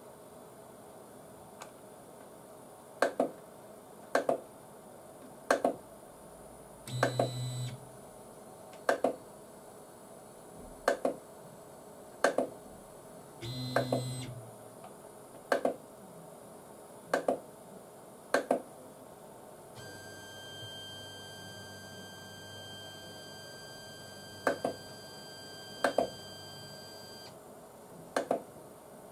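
3D printer stepper motors driven by A4988 drivers, buzzing with short pitched blips about every second or so. Twice the blips stretch into a longer tone, and past the middle a steady whine lasts several seconds. This audible stepper noise is what A4988 drivers are known for.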